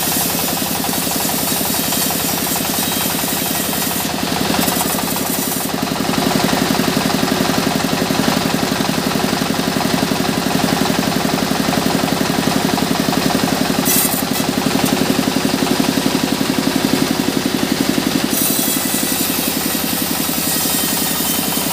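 Sawmill band saw running and ripping lengthwise through a mahogany log, a loud, steady, fast-pulsing machine noise. It grows louder about six seconds in and eases back near eighteen seconds.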